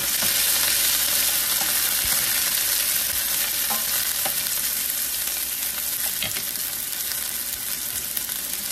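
Sliced onions sizzling steadily in hot oil in a stainless steel frying pan, stirred with a wooden spoon.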